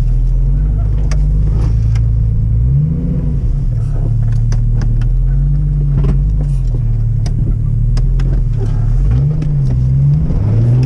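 1991 Jeep Cherokee XJ's engine crawling in four-wheel low, its revs rising and falling several times, heard from inside the cab. Scattered sharp knocks and clicks sound over it.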